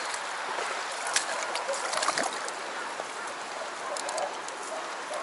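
Shallow rocky stream running, a steady rush of water over stones, with a few light clicks and knocks.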